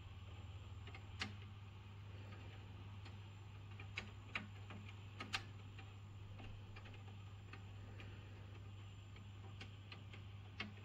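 Raindrops tapping on a window, a few sharp ticks at irregular intervals over a low steady hum.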